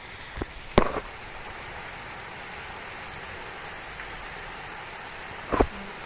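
Heavy rain falling steadily as an even hiss. A few sharp knocks stand out, two close together about a second in and one near the end.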